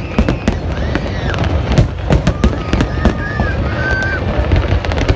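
New Year fireworks display: a steady low rumble of distant bursts, with many sharp bangs and crackles going off irregularly on top.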